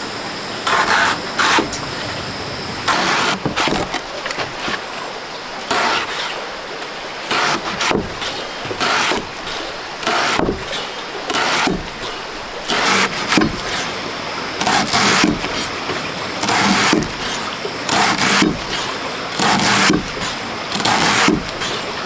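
A knife slicing banana stem on a board: a series of short, crisp cuts about once a second.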